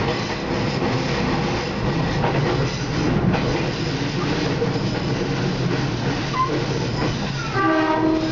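A train running along the track, heard from inside the front of the passenger car: a steady rumble and rolling noise of wheels on rails. A brief steady tone with several pitches sounds near the end.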